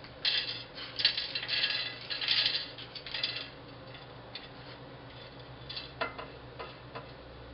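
Dry toasted corn kernels rattling as they are scooped from a small bowl and clicking down onto a ceramic plate, a dense clatter for the first few seconds, then a few scattered clicks as single kernels are set down.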